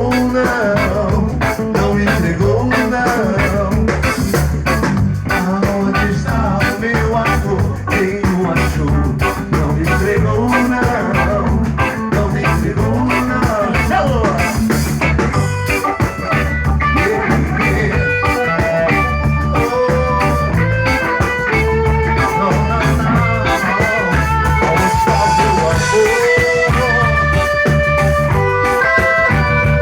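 A band playing a reggae song, with a steady repeating bass line under the whole passage. From about halfway through, a lead instrument, likely guitar, plays held notes that step up and down over it.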